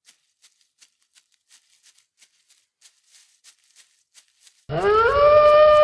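Faint scattered ticks, then near the end a loud wolf howl sound effect that rises briefly in pitch and then holds one steady note.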